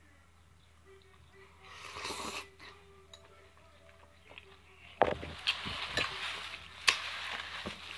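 Close-up mouth sounds of eating a forkful of mixed greens: a short breathy sound about two seconds in, then louder wet lip-smacking and slurping with sharp clicks from about five seconds in.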